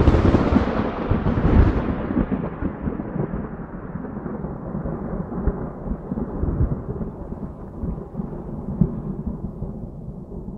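A thunderclap crashing in at the start and rolling on as a long rumble of thunder that slowly fades, with a couple of sharper cracks along the way.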